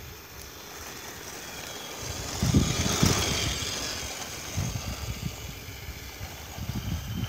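Large battery-powered RC buggy's electric motor whining with its tyres rushing on concrete, swelling as it drives close past about two and a half seconds in, then fading as it pulls away. Low buffeting on the microphone at the same time.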